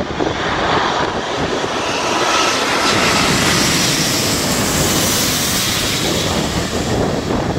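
Lufthansa Airbus A380's four Rolls-Royce Trent 900 turbofans at approach power, the jet noise swelling to its loudest as the airliner passes low overhead on final approach, with a faint whine in the middle. Wind buffets the microphone underneath.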